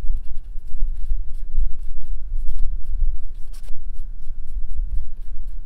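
Fingers rubbing and patting a wet, marker-coloured coffee filter on a wooden table, making faint soft clicks and scuffs. Under them runs a loud, uneven low rumble of wind on the microphone.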